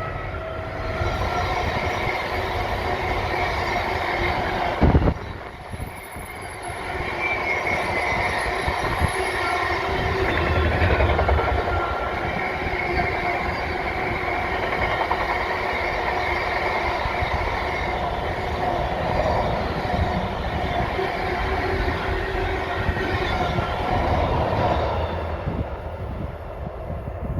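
Freight train hauled by a Class 70 diesel locomotive passing, its wagons rolling by in a long, steady rolling noise with a few held ringing tones over it. A single sharp knock comes about five seconds in.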